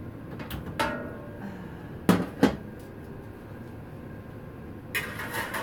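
Oven door being opened and a round metal baking pan set onto the oven rack: a light clunk, then two sharp metal knocks close together about two seconds in, and a scraping rattle near the end as the pan slides onto the rack.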